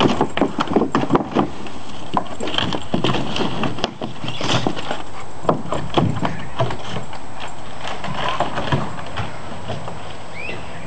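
Plastic kiddie pool knocking and scraping over the ground as a Labrador shoves it along with its nose and paws: irregular hollow knocks, thickest in the first second or two, then sparser.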